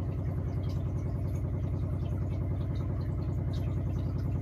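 A steady low mechanical hum with a fast, even pulse, like a small motor or fan running.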